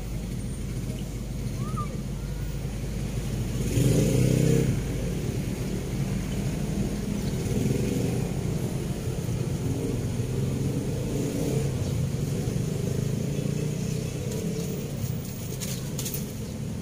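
Motor vehicle traffic on the road bridge overhead: a steady engine rumble that swells louder for about a second around four seconds in.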